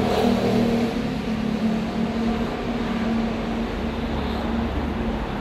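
Street traffic: a vehicle engine running with a steady low hum over a general rumble, the hum dropping away near the end.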